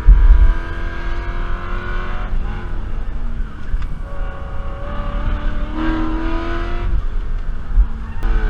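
BMW E92 M3's 4.0-litre V8 under hard acceleration on track, its pitch climbing through the revs, dropping back a little after two seconds and again near the end, then climbing once more, over a heavy low rumble.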